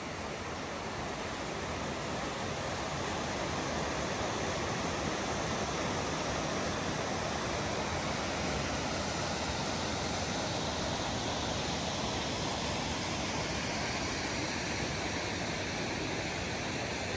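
A waterfall's steady rush of falling water, a dense, even roar.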